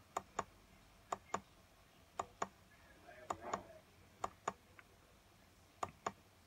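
Laptop button clicks, each a quick press-and-release pair, six times at roughly one-second intervals as photos are stepped through in a picture viewer.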